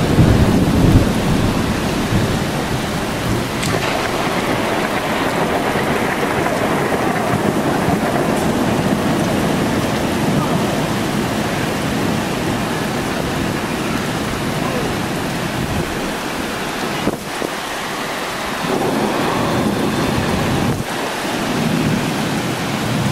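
Thunder rumbling loudly at the start and slowly dying away over steady heavy rain.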